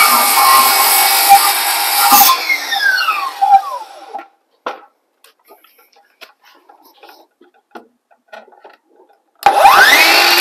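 Ryobi cordless circular saw cutting notches into pine framing lumber; about two seconds in the trigger is released and the blade whines down over a couple of seconds. A few light knocks of handling follow in near quiet, and near the end the motor whines back up to speed and cuts into the wood again.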